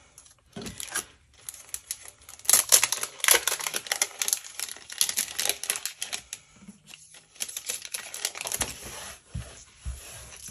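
Clear plastic packet crinkling and rustling while small paper die-cut pieces are handled and slipped back into it, with dense rapid crackles through the middle. A couple of soft taps on the table near the end.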